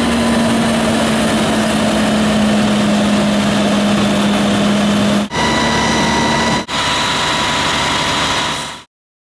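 Fire truck's engine running steadily with a constant hum, in three short clips cut together; the sound cuts off abruptly near the end.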